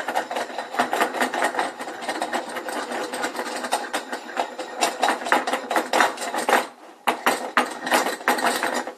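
Steel C-clamp's threaded spindle being spun in by hand: a fast, continuous metallic rattling of the thread in the clamp frame, with the clamp clattering on the wooden board beneath it. It breaks off briefly about two-thirds through and stops at the end.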